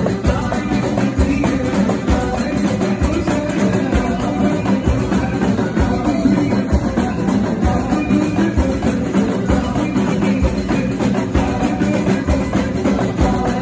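Live band music from a Moroccan wedding orchestra, with a steady drum beat under the instruments.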